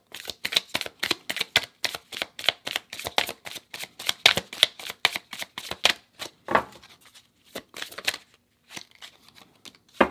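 A tarot deck being shuffled by hand: a quick run of crisp card slaps, about four or five a second, that thins out after about six seconds into a few scattered taps as a card is laid on the table.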